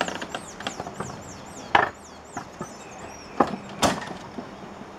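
Sharp wooden knocks and clatter from the boards of a wooden plank rail cart being handled: the loudest about two seconds in, and twice more between three and four seconds.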